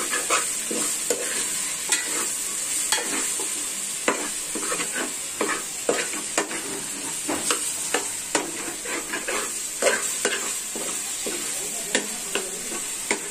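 Chicken pieces coated in masala sizzling in hot oil in a metal pot while being sautéed. A metal spoon stirs them, scraping and clinking against the pot at irregular intervals over a steady frying hiss.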